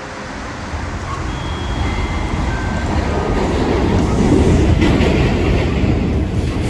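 Subway train running on the rails: a loud rumble with rail noise that builds over the first few seconds.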